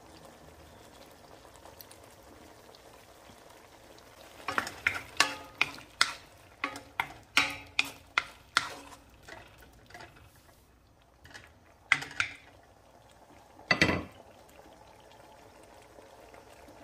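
Wooden spoon stirring squid in sauce in a nonstick wok, knocking and scraping against the pan about twice a second, starting about four seconds in, with a few more knocks later and a last louder one near the end.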